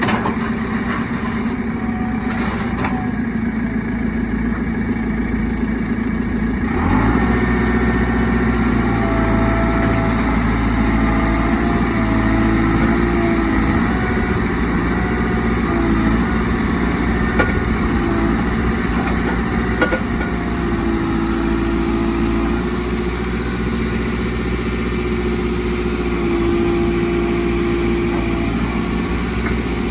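JCB 3CX backhoe loader's diesel engine running steadily; about seven seconds in its sound steps up and gets a little louder, with a wavering whine on top for the rest of the time.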